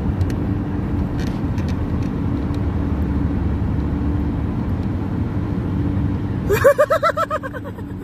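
Wind and road noise from cars moving at speed, a steady low rumble. Near the end comes a short run of quick pitched sounds, about a second long.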